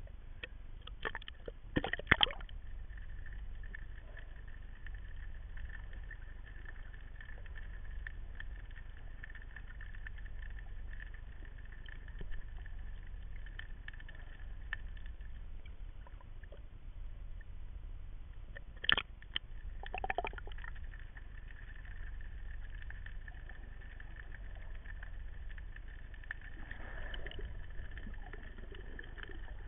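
Underwater sound picked up by a diving camera: a steady low rumble with scattered faint crackling clicks, and louder sudden bursts about two seconds in and again around nineteen to twenty seconds in.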